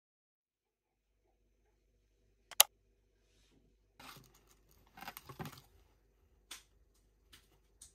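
Packaging handled: a single sharp click about two and a half seconds in, then plastic sachets rustling against a cardboard box as a hand draws one out, and a few light clicks near the end.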